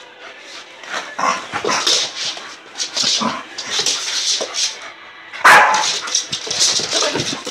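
Young Staffordshire Bull Terrier barking and yipping in excited play, a quick run of short sounds with the loudest about five and a half seconds in.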